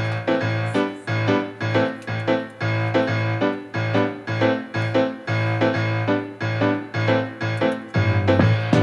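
Background music: piano or electric-piano notes played in a steady, even rhythm, with the music changing to a different arrangement near the end.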